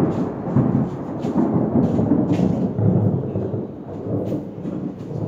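A long, loud roll of thunder, a deep rumble that slowly fades.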